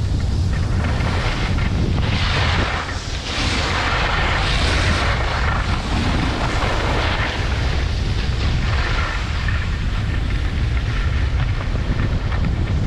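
Wind buffeting a GoPro Hero 8 Black's microphone during a fast ski descent: a steady heavy rumble, with hissing scrapes of skis on packed snow that swell and fade every second or two as the turns are carved.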